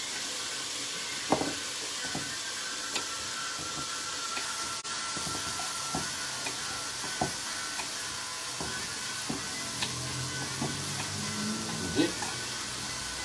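Onions frying in olive oil in a cast-iron pot, a steady sizzle, with a kitchen knife knocking on a wooden cutting board at irregular intervals as carrots are chopped small.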